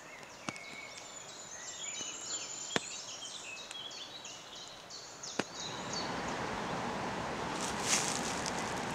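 A small songbird sings a quick run of short, high chirping notes over a faint background hiss, with a few sharp clicks. About six seconds in, a louder, steady rush of flowing water takes over, with some rustling near the end.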